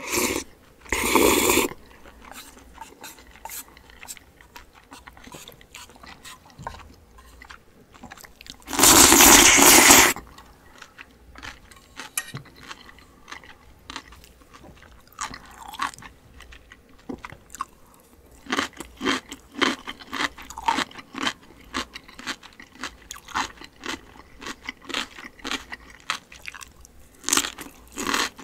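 Close-miked eating with no talk. Cold noodles are slurped in a short burst about a second in and a longer, louder one about a third of the way through, with quieter chewing between. In the second half, crisp cucumber kimchi is bitten and chewed with steady crunching, two to three crunches a second.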